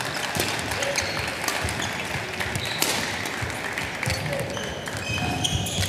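Badminton rally: a few sharp racket hits on the shuttlecock, the loudest about three seconds in, and shoe squeaks on the court floor near the end, over steady hall noise.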